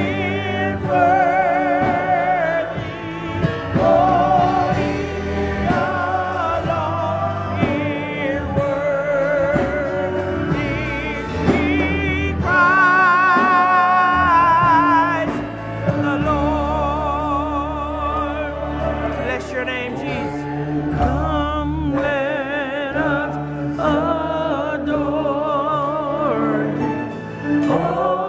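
Gospel choir and congregation singing together with heavy vibrato, a man's voice on a microphone leading, over held low accompaniment notes.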